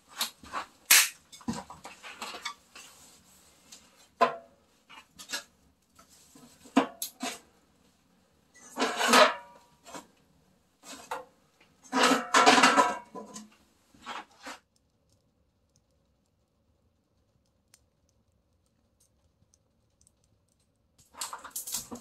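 Metal clanks and scrapes from a barrel wood stove as its steel lid is handled and the burning kindling is poked, with scattered knocks and two busier clusters about nine seconds in and again around twelve to thirteen seconds; the sounds stop about fourteen seconds in.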